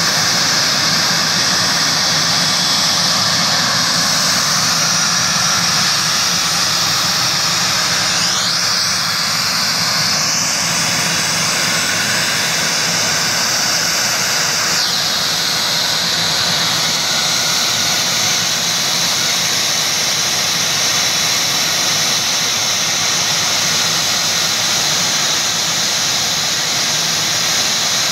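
Cessna Citation Bravo's twin turbofan jet engines running, a loud steady rush with a high whine. About 8 seconds in, a whine rises in pitch and then holds until it cuts off at about 15 seconds.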